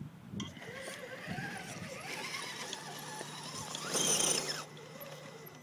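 Axial SCX10 RC rock crawler's 35-turn brushed electric motor and geartrain whining, the pitch rising and falling as the throttle is worked on a steep dirt climb. About four seconds in there is a short, louder burst of noise as the truck pulls up the bank.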